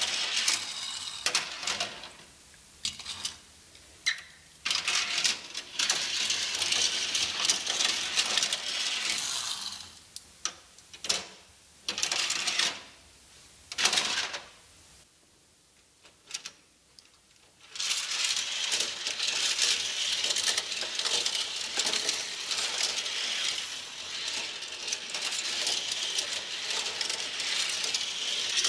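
Die-cast toy cars rolling and rattling down the plastic ramps of a toy parking garage, with sharp clicks as wheels and bodies knock against the track and barriers. The rattling runs in long stretches, broken by a quieter spell in the middle where only a few single clicks are heard.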